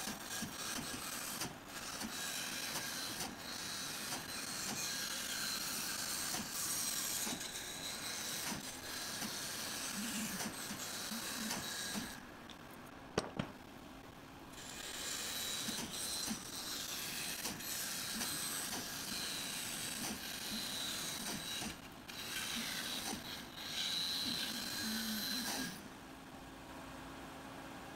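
Narrow-blade bandsaw cutting a curve in a wooden board: the hiss of the blade in the wood, stopping for a couple of seconds near the middle, where a single click sounds, and briefly again later. Near the end the cut stops and the saw runs on with a steady low hum.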